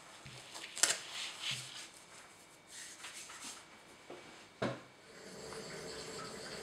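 Rustling as hands handle a dead cock pheasant's feathers, with a sharp click about a second in and a knock just before five seconds. Then a steady scraping as a knife blade is stroked back and forth on a fine whetstone wetted with water.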